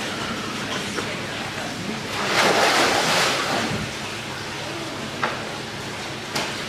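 Water splashing and sloshing as Cuvier's dwarf caimans thrash at the surface of a shallow pool while being fed, with a louder surge of splashing about two seconds in that lasts over a second. Two short sharp clicks come near the end.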